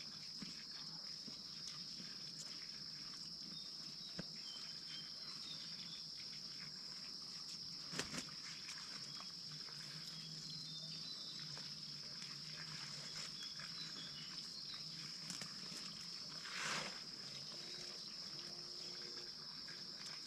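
Insects droning steadily in a high, even tone, with a few sharp knocks and a brief rustle near the end.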